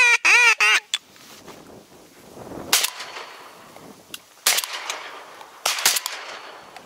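A loud, rapid series of duck quacks in the first second, then several shotgun shots spread over the following seconds, the last two close together.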